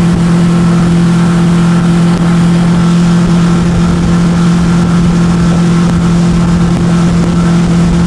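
Motor of a small tour boat running at a steady cruising speed, a constant low drone that holds one pitch.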